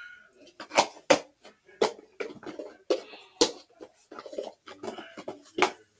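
Plastic containers clacking and knocking together as they are rummaged through, in an irregular run of sharp clatters.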